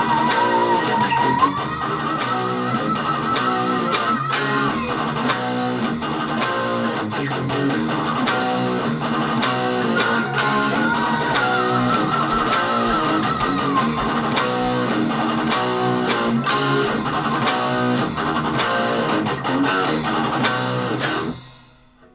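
Electric guitar lead played over a full band backing track, with held notes shaken by vibrato among faster passages and a steady drum beat. The music stops abruptly near the end.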